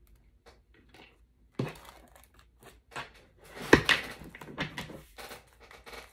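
A deck of oracle cards shuffled by hand: a run of quick card clicks and flicks, with a sharp tap about a third of the way in and a louder one a little past halfway, followed by the densest stretch of shuffling.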